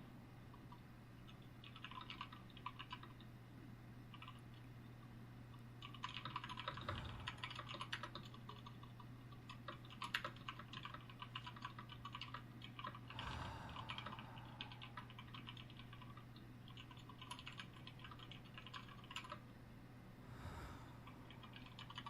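Computer keyboard typing: irregular bursts of quick key clicks separated by short pauses. A few soft breaths and a steady low hum sit underneath.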